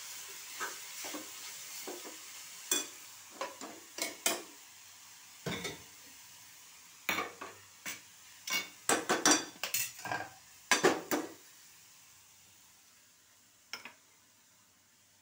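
Metal ladle and slotted spoon clinking, knocking and scraping against an aluminium pressure-cooker pot and a frying pan, a quick series of sharp clinks that thins out near the end. A soft sizzle from the just-switched-off pan dies away over the first few seconds.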